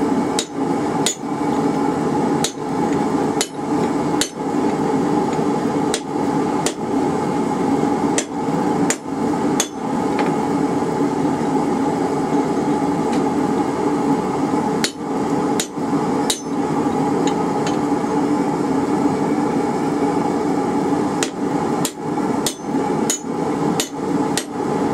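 Hand hammer striking hot half-inch rebar laid over a hardy hot cut on the anvil, cutting the bar: sharp metal blows in uneven runs of two to six, with pauses of a few seconds between runs. A steady rushing noise runs underneath.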